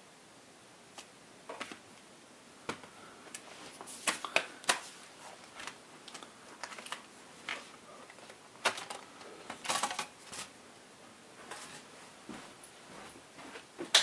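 Lenovo ThinkPad X1 Carbon laptop being handled: turned over and its bottom cover taken off, giving irregular clicks, knocks and short scrapes, with a sharp click near the end.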